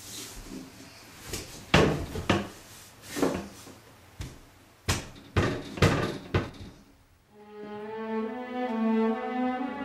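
A string of irregular thumps and knocks against a wooden bathroom vanity cabinet, about seven sharp ones. About seven seconds in, slow bowed-string music comes in and swells.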